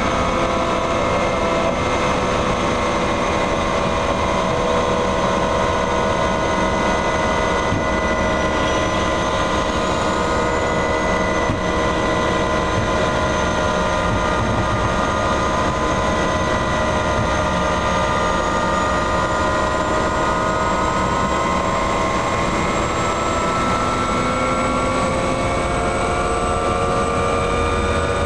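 Helicopter turbine engine and rotor running, heard inside the cabin with the aircraft still parked on the ground: a loud, steady whine of several tones that drift slightly in pitch and edge upward in the last third.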